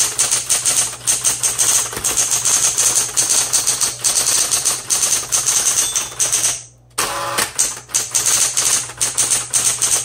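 Smith-Corona Coronet Automatic 12 electric typewriter being typed on quickly: a dense, rapid run of key and typebar strikes over the steady hum of its running motor, with a brief pause about seven seconds in.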